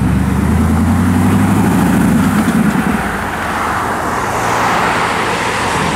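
Spyker C8 Spyder's V8 engine pulling away at low revs, its low note rising a little before fading as the car moves off. A broad hiss of road and traffic noise swells near the end.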